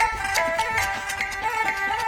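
Background music: a quick instrumental melody of plucked notes with a steady beat.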